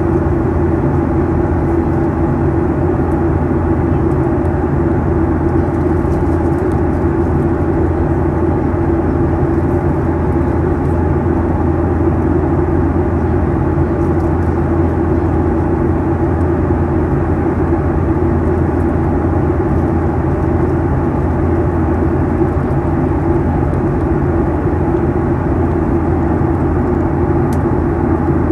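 Steady jet engine drone and rushing airflow inside the cabin of a Boeing 737-800 in flight, heard from a window seat beside the CFM56-7B engine. It is an even, unchanging hum with a low rumble.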